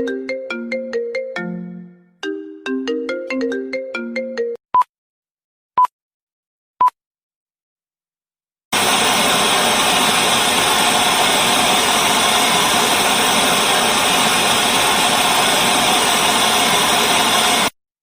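A phone ringtone melody of short, bright struck notes plays twice, followed by three short single-pitch beeps about a second apart. After a few seconds of silence, a loud, steady hiss of static starts suddenly, runs for about nine seconds and cuts off abruptly.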